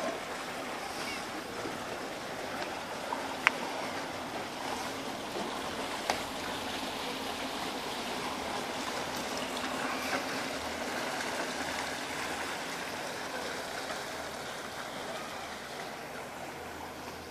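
Steady rush of moving water in a marina lock as a small wooden sailing yacht moves through it, under a faint low steady hum. Two sharp clicks, about three and a half and six seconds in.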